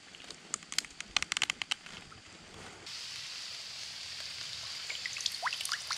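A quick run of sharp plastic clicks as a small camera clamp mount is fastened and handled. A little under three seconds in, this gives way to the steady rush of shallow creek water running over a riffle, with faint trickles.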